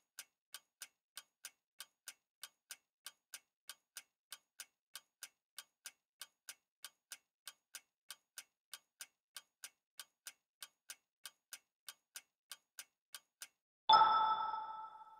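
Quiz countdown-timer sound effect: clock-like ticking about three times a second, then, about a second before the end, a louder bright chime that rings and fades as the correct answer is revealed.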